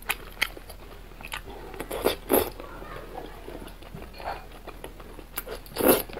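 Close-up wet chewing and slurping of a thick, chewy noodle strand coated in chili oil, with sharp mouth smacks and clicks. A few louder slurps come about two seconds in and again, loudest, near the end.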